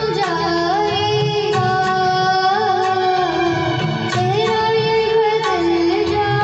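Music: a young girl singing an Indian melody in long held, gliding notes over a tabla accompaniment.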